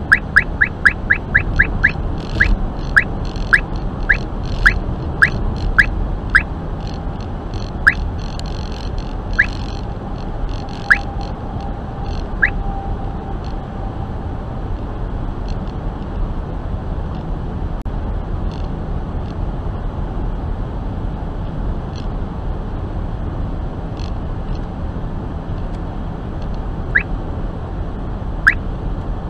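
Uniden R3 radar detector sounding its Ka-band alert for a 34.6 GHz radar signal: a train of short chirping beeps, fast at first, then slowing to one every second or so and stopping about halfway through, with a few isolated beeps near the end. The slowing beep rate marks the radar signal weakening. Steady road and tyre noise inside the car's cabin runs underneath.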